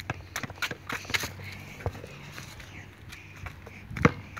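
Scuffing footsteps and light knocks on a concrete court, then a basketball bouncing hard on the concrete near the end.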